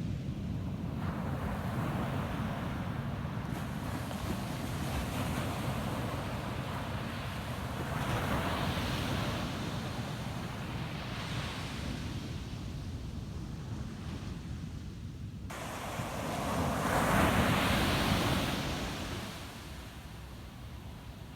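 Ocean surf breaking on a beach: waves swell and wash in several times, the biggest near the end, then it eases off. Under it runs a steady low rumble of wind on the microphone.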